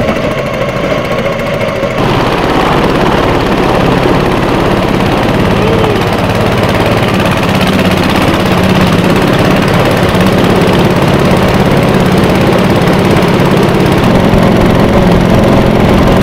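Small tiller outboard motor on a flat-bottom jon boat running under way at a steady throttle, loud and close.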